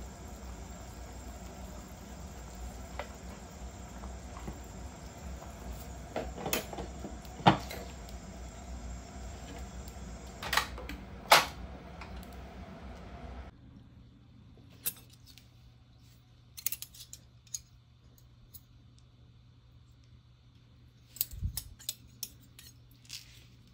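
A pot of chicken tinola simmering with a steady low bubbling noise, while a metal ladle and the glass lid clank against the pot several times. About halfway through the sound drops much quieter, leaving only a few light clinks of dishes.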